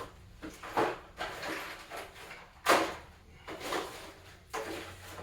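Someone rummaging through a cluttered junk drawer: objects clatter and knock, a few times over, the loudest knock nearly three seconds in.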